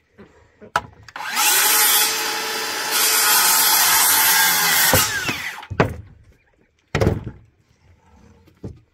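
Cordless DeWalt circular saw spinning up, cutting through a length of framing lumber for about four seconds, then winding down. Two sharp knocks follow.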